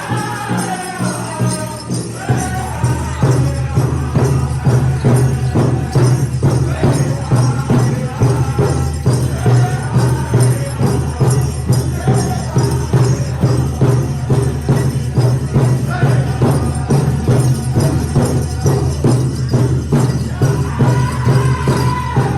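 Powwow drum group singing: high voices sliding downward, then the big drum comes in about two seconds in and beats a steady, even rhythm under the group's singing.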